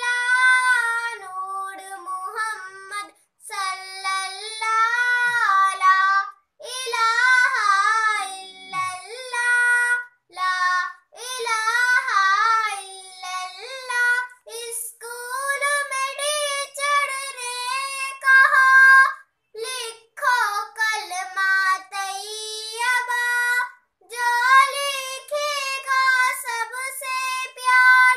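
A young girl singing a naat solo, unaccompanied. Her voice carries the melody in sustained, wavering phrases with short breaks for breath between them.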